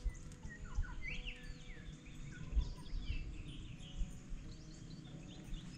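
Birds chirping: short rising and falling calls scattered throughout, over a low, uneven rumble. A single sharp click right at the start.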